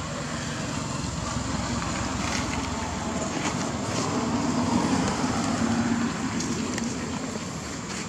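Steady low rumbling background noise that swells a little around the middle, with a faint low hum, and a few faint clicks.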